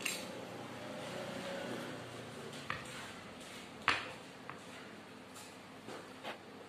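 Eating at a plate of skewered meatballs: a few sharp clicks and taps of wooden skewers against the plate, the loudest about four seconds in as a bundle of skewers is lifted, over a steady electric-fan hum.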